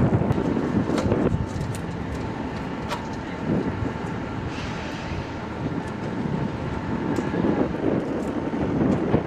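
Jet fighter engine noise: a steady, noisy rumble with a thin whine over it.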